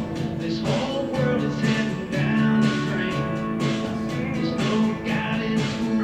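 Recorded country song playing, with guitar and band backing.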